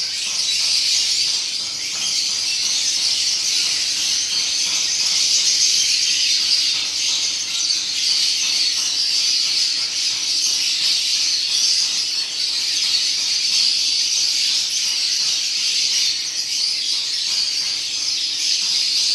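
Lovebirds chattering: a dense, continuous high-pitched chatter of many calls running together, with no pauses.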